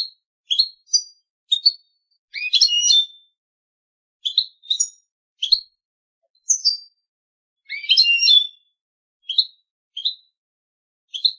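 European goldfinch singing: a string of short, separate rising chirps and whistled notes. Two longer, denser twittering phrases come about two and a half seconds in and again about eight seconds in.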